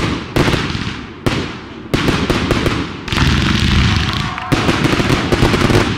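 Aerial fireworks bursting in quick succession, about six bangs in six seconds, each followed by a spray of crackling that fades away.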